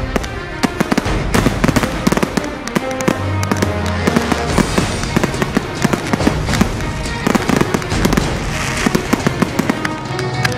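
Professional fireworks display: a rapid, irregular string of sharp bangs and pops from shells bursting, several a second, with music playing under them.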